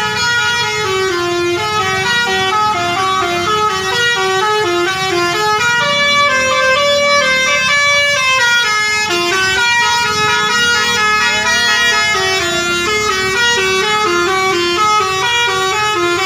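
Basuri musical air horn on a bus playing a tune: a long, unbroken run of stepped horn notes, several sounding together, changing pitch about every half-second.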